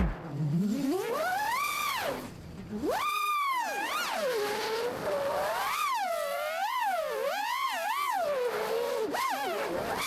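FPV freestyle quadcopter's brushless motors whining, the pitch sweeping up and down with the throttle and dropping away briefly about two seconds in before climbing again.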